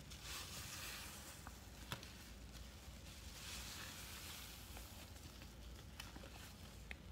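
Hands squeezing and working a wet baking-soda, soap-flake and baby-powder paste: soft squishing and crackling that swells twice, with a few sharp little clicks.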